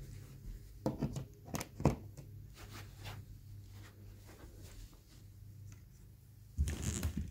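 A few sharp clicks and knocks as a power cord's plug is pushed into a wall outlet, then a short cluster of knocking and rustling near the end as a hand grips the plastic body of a canister vacuum, over a faint low hum. The vacuum motor is not running.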